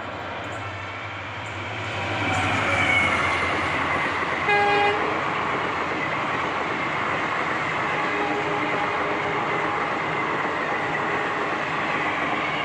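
Indian Railways express train passing at speed, a steady rushing rumble that swells about two seconds in. A short horn blast sounds about four and a half seconds in.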